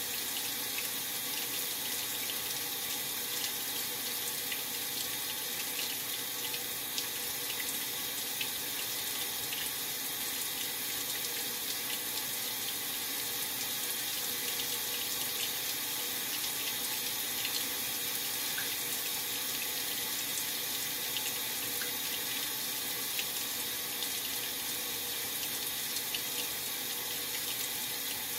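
Maytag Centennial top-load washing machine with water running steadily into its tub as it fills.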